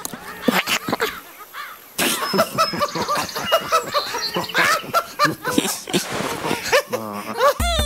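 Cartoon animal voices chattering and snickering, many short rising-and-falling calls overlapping each other. Music comes in just before the end.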